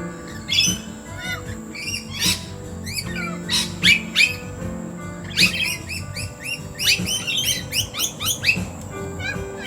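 A mixed flock of wild birds calling over one another in quick, overlapping squawks and chirps. Background music with low sustained notes plays underneath.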